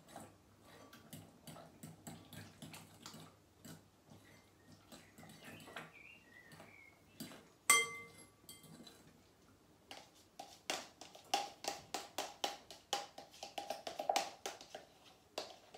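A spoon scraping and knocking yogurt out of a tub into a glass bowl: soft scrapes and clicks, one sharp ringing clink of spoon on glass about halfway through, then a quick run of taps, about four a second, over the last few seconds.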